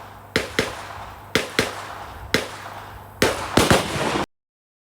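A string of gunshots on a shooting range, sharp cracks coming every quarter second to a second, several in close pairs and too quick for one bolt-action rifle, so mostly from neighbouring shooters. About four seconds in the sound cuts off abruptly to dead silence, where it has been edited out.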